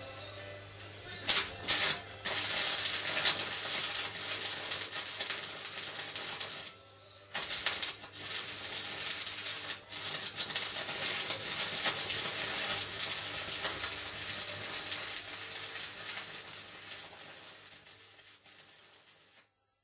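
Electric arc welding: two short arc strikes, then the arc crackling steadily in two long runs, with a brief stop about seven seconds in, until it cuts off just before the end.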